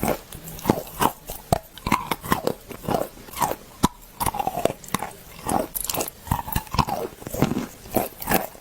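A person biting and chewing dry white clay, with a steady series of crisp crunches, about two or three a second.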